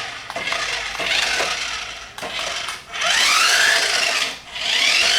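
Small electric motor of a toy RC car whirring in repeated bursts, each about one and a half seconds long, its pitch rising and then falling as the car speeds up and slows.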